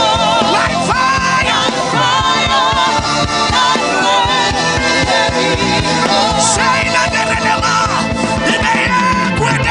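Gospel worship music: a voice singing long, wavering notes over a steady drum beat.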